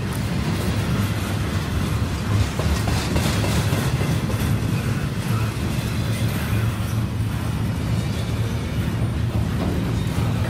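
Double-stack intermodal well cars rolling slowly past: a steady rumble of steel wheels on rail.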